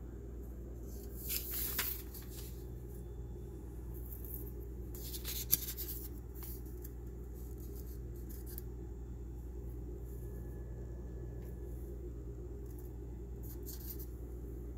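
Steady low hum with two short bursts of rustling, about one and five seconds in, the second ending in a sharp click; a few faint ticks follow later.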